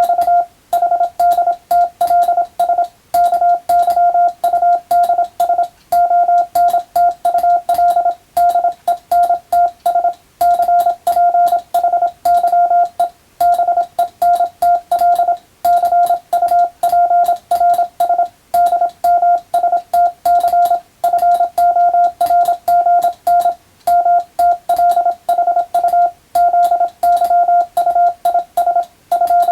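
Morse code (CW) sent as a steady tone of about 700 Hz, keyed rapidly on and off in dots and dashes with short pauses between characters and words, with faint clicks at the keying edges.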